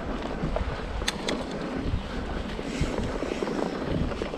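Mountain bike riding over rough trail: a steady rumble and rattle of the tyres and frame, with two sharp clicks about a second in.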